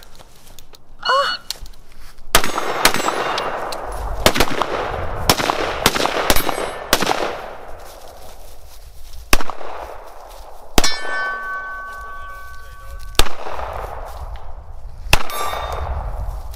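Short-barrelled AR-15 pistol firing about a dozen single shots at irregular intervals, with steel targets clanging and ringing after hits; one ring, about two-thirds of the way through, hangs on for a couple of seconds.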